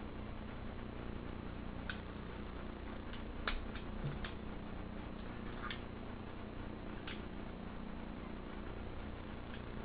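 Scattered light clicks and clacks, about five, from an Army Armament R29 airsoft 1911 pistol, a metal gas-blowback replica, being field-stripped by hand: the slide stop pushed out and the slide worked on the frame.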